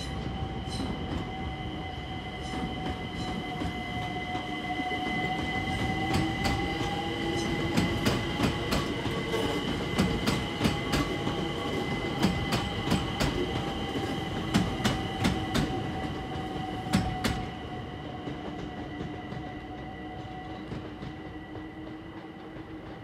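London Overground electric multiple unit passing close by, its motors giving a steady whine while the wheels click rhythmically over rail joints; the clicks stop about three-quarters of the way through and the sound falls away.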